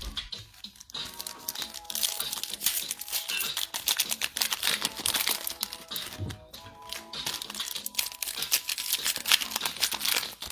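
Shiny wrapper of a basketball trading-card pack crinkling as hands pull it open and handle the cards, starting about a second in, over background music.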